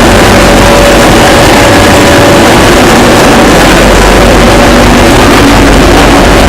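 Loud, steady engine and machinery noise of a ship under way, with a constant drone and faint steady hum tones.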